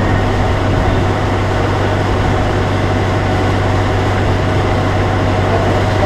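Sawmill machinery engine running steadily at a constant speed, a low hum under an even mechanical drone, with no cutting heard.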